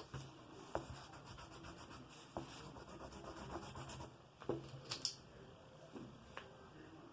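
A drawing tool rubbing back and forth quickly on a drawing surface, like shading or erasing, with a few sharp taps in between.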